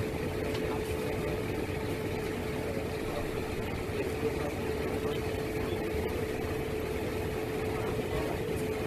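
Jet engines of a four-engine C-17 Globemaster III cargo plane running steadily as it rolls along the runway after touching down, with a constant whine and a low rumble, heard through a phone recording.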